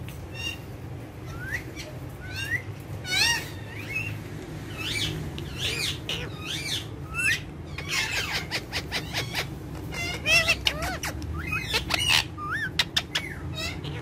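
Indian ringneck parakeets calling: a string of short chirps and whistles, many rising or curving in pitch, coming thicker in the second half, with scattered sharp clicks and a steady low hum underneath.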